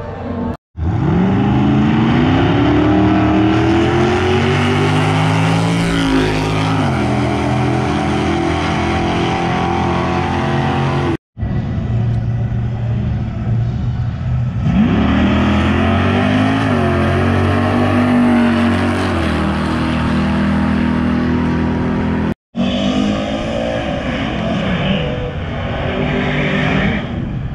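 Mustang drag cars accelerating down the strip, the engine note climbing as each car pulls hard. Three passes follow one another, each broken off by an abrupt cut, at about 1, 11 and 22 seconds.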